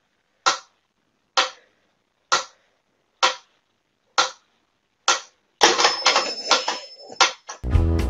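Mechanical pyramid metronome ticking steadily, six sharp ticks a little under a second apart. Then a louder, noisy sound of a couple of seconds, and music with a steady beat starts near the end.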